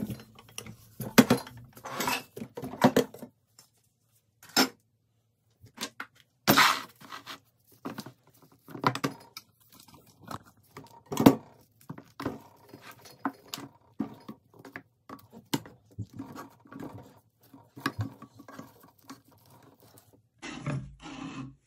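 Uneven clinks, knocks and scrapes of solid wax slabs being handled and set into an electric melting pot, along with handling of its glass lid. The impacts come one at a time with short pauses between them.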